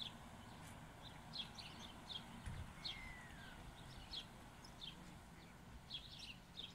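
Small birds chirping: short, high chirps repeated irregularly, with one falling whistle about three seconds in, over a faint low hum.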